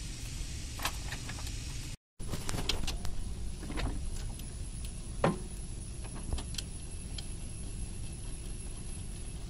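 Scattered light clicks and knocks from hands handling and fitting the parts and fasteners of an excavator cab's seat and joystick console, over a steady low rumble. The sound cuts out for a moment about two seconds in.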